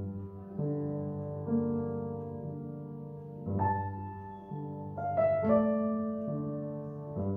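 Yamaha upright acoustic piano played solo: slow, sustained chords struck about once a second, each ringing on and fading before the next, with the playing growing louder and fuller about three and a half seconds in.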